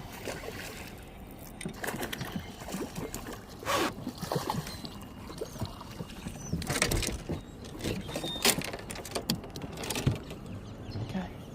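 Scattered knocks and rustles of gear being handled aboard a small fishing boat.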